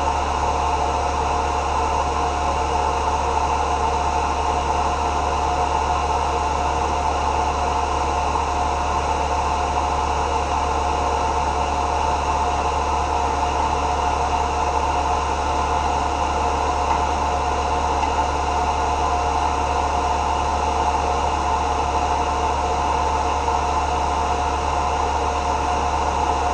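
Tormach 1100 CNC mill running steadily: a constant machine hum and hiss with a steady whine, unchanging throughout.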